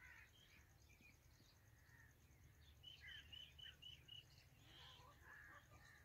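Faint songbird calls: scattered chirps and short whistles, with a quick even run of about six short chirps around the middle.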